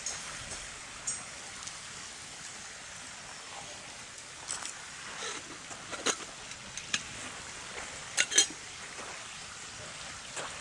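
Wood campfire crackling, with several sharp pops at irregular intervals over a steady background hiss.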